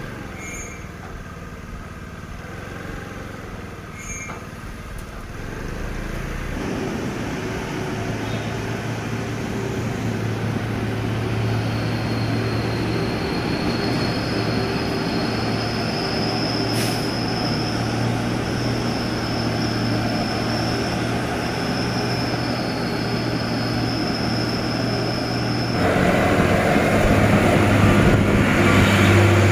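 Heavy diesel trucks driving past close by, engine and road noise steady. The sound steps up abruptly about six seconds in and again near the end. A thin, steady high whine runs through the middle stretch.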